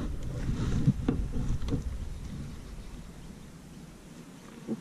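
Low rumble of wind and handling noise on the camera microphone, fading quieter after about halfway, with a few light clicks around a second in as the spinning reel and rod are handled.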